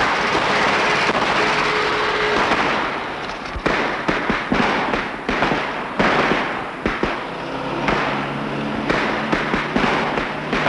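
Early motor cars of around 1907 driving fast on a dirt road, engines running. From about three seconds in come many sharp, irregular pops and cracks.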